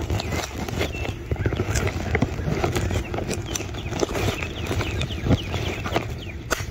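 Irregular knocks and scuffs of footsteps and phone handling on a grassy, dirt yard, over a low rumble of wind on the microphone, with a few short high chirps.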